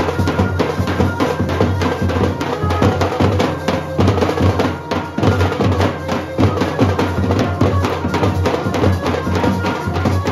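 Procession band of big bass drums beaten with padded mallets, with a side drum on sticks, playing a loud, fast, dense beat.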